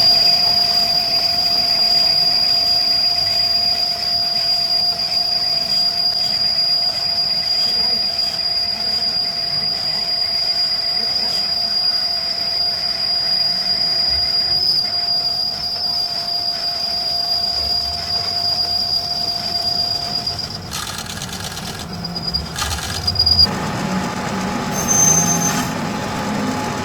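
Steady, high-pitched metallic squeal with a second, lower steady tone under it, from machine work on metal. It cuts off about 20 seconds in and gives way to a few knocks and clatter.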